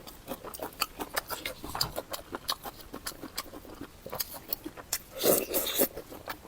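Close-miked chewing and lip-smacking of a person eating, wet mouth clicks coming a few times a second, with a louder bout of chewing about five seconds in.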